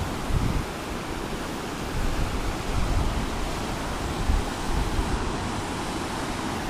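Steady rushing of whitewater rapids and falls, with wind gusts buffeting the microphone in uneven low rumbles.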